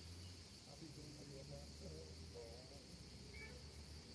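Quiet waterside ambience: a steady high chirring of crickets, with faint, indistinct voices in the distance.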